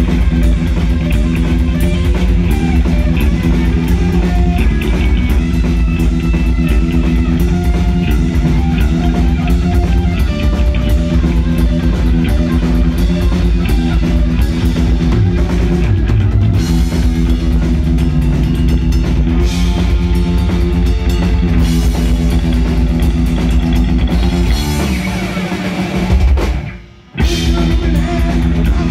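Heavy metal band playing live: drum kit and electric guitars at full volume. Near the end the band stops for a split second, then crashes back in.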